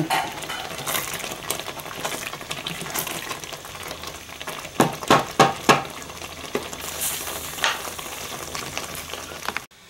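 Thick fig jam bubbling and popping as it boils down in the pot, a steady crackle of small pops with a few louder ones about five seconds in; the jam is nearly at its setting point. The sound cuts off suddenly just before the end.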